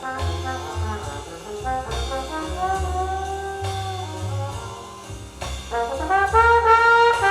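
Recorded jazz-style music with a brass section of trombones and trumpets holding long notes over a bass line, played back from vinyl through a hi-fi system. The brass gets louder near the end.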